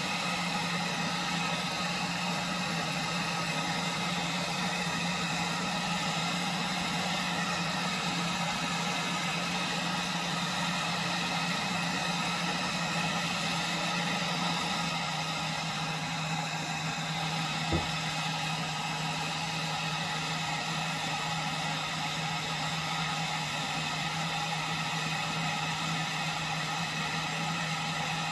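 Small propane burner screwed onto a green 1 lb propane cylinder, running steadily under an aluminium pot of water that is heating toward a boil: a steady rushing hiss with a low hum. A single short knock about eighteen seconds in.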